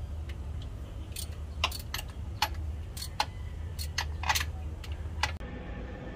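Metal tools clinking against engine parts: a scattered series of sharp metallic clinks and taps, about a dozen in five seconds, over a steady low hum. The clinks stop about five seconds in.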